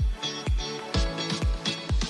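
Background electronic dance music with a steady kick drum, about two beats a second, under sustained chords.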